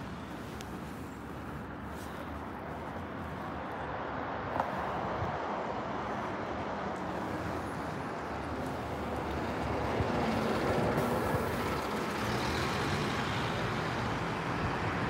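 Heavy lorry diesel engines and road traffic, a steady rumble that grows louder about ten seconds in.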